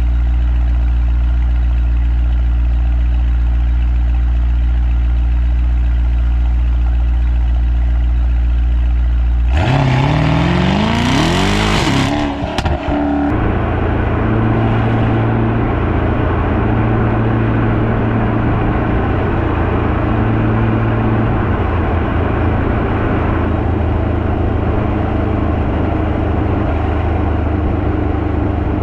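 Mercedes E63S AMG's 4.0 twin-turbo V8 (M177), fitted with upgraded downpipes and an aftermarket intake and running with the exhaust flaps fully open. It runs at a low, steady note, then about ten seconds in revs up sharply for a couple of seconds. It breaks off briefly and then holds a steadier, higher note.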